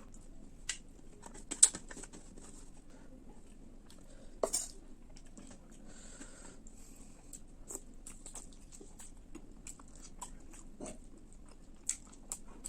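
Close-miked chewing of spicy fish roast and rice: wet mouth clicks and smacks with a few sharper crunches, the loudest about one and a half seconds in and again near four and a half seconds.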